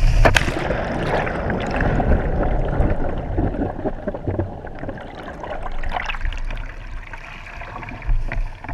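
Water sloshing and splashing around a jet ski, with a low rumble, a sharp knock about a third of a second in, and the sound slowly fading.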